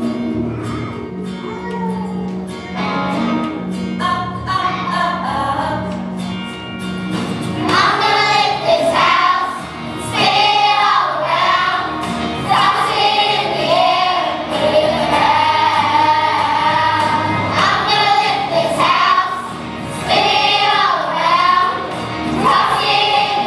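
Children's choir singing a country-pop song over instrumental backing music. The first several seconds are instrumental, and the voices come in about a third of the way through.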